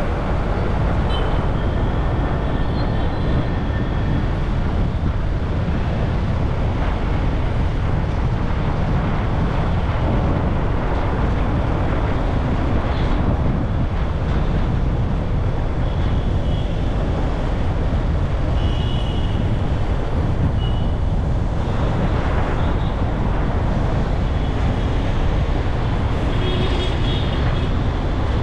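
Steady road traffic noise from a drive on a busy city highway, a dense rumble heaviest in the low end, with a few short high-pitched tones now and then.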